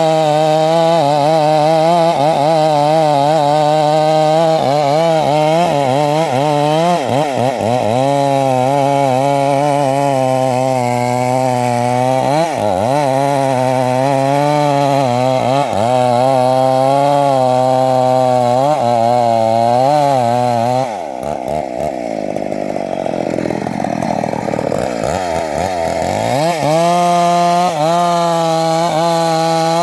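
Two-stroke chainsaw running under load as it cuts acacia wood, its engine pitch wavering up and down as the chain bites. About two thirds of the way through the tone turns rougher and muddier for about five seconds, then the steady running returns.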